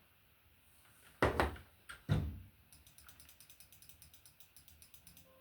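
Two loud knocks about a second apart, then a run of faint, quick clicks.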